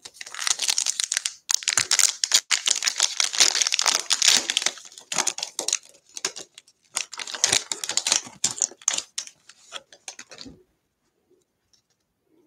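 Foil wrapper of a 2020 Bowman 1st Edition baseball card pack crinkling and tearing as it is ripped open by hand, in two spells of dense crackling that stop about ten seconds in.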